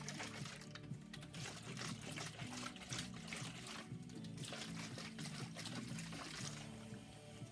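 Liquid sloshing inside a can of Caesar cocktail shaken hard by hand, in rapid bouts with short pauses, over background instrumental music.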